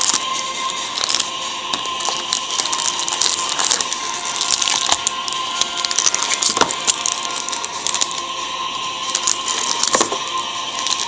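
Trading-card packaging being handled and opened: an irregular run of crackles and small clicks from plastic wrap and cardboard.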